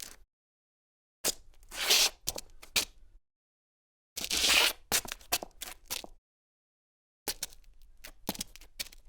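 Three short recordings of a woman's footsteps, separated by silence. Each has a few sharp step clicks, and the first two also have a longer scraping scuff of a shoe sliding.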